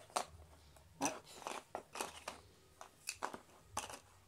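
Cardboard maze tiles of a Labyrinth board game being set down and slid into place on the board: a run of light, irregular clicks and taps.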